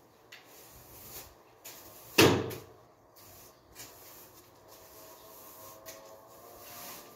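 A single loud bang about two seconds in, with a short ring after it, amid faint scratchy strokes of a broom sweeping dust off floor tiles.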